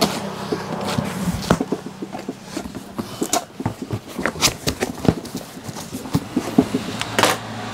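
Box cutter slitting the packing tape on a corrugated cardboard carton, then the flaps pulled open: an irregular run of scratchy scrapes, clicks and cardboard knocks.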